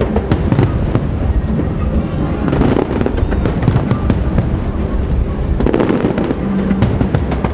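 Aerial fireworks going off in a dense, continuous barrage: many rapid bangs and crackles over a low rumble, with music playing underneath.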